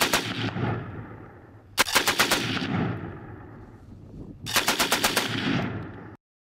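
Machine gun firing three short bursts about two seconds apart, each a quick string of shots with an echoing tail. The sound cuts off abruptly about six seconds in.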